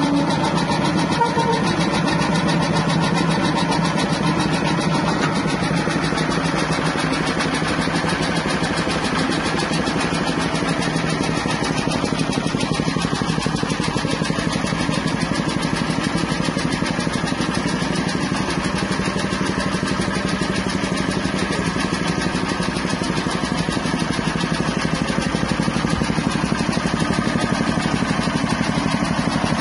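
Small single-cylinder petrol engine running steadily at constant speed, driving a soybean dehulling machine.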